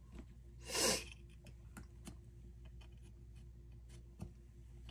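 Faint scattered clicks and light metal taps as a small steel airsoft gearbox selector plate is handled and fitted back into the gearbox shell, with one short loud breath through the nose about a second in.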